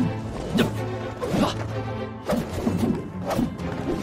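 Dramatic background music with a run of sudden swishing strikes and impact hits, several in quick succession: the added sound effects of a staged martial-arts and magic fight.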